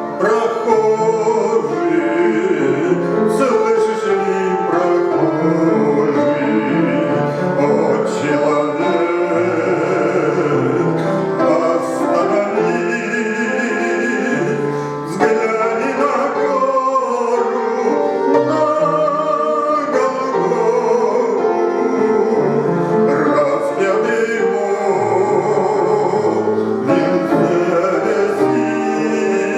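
A man singing a Christian hymn with vibrato over instrumental accompaniment.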